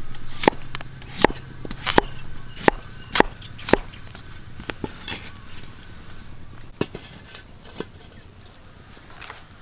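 A kitchen knife chopping through raw potato chunks onto a wooden chopping board: six sharp knocks about every two-thirds of a second, followed by a few fainter knocks.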